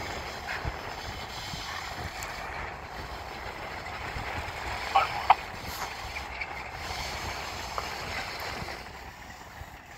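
Freight train led by Alco diesel locomotives rolling slowly in reverse: a steady low rumble of engines and wheels on rail. Two short, sharp squeaks come about halfway through.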